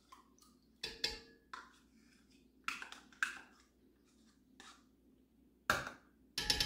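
Scattered light knocks, taps and scrapes of kitchen utensils on a pot and cup as a half cup of yogurt is added to warmed milk in a cast iron pot. There are about seven short knocks, the sharpest near the end.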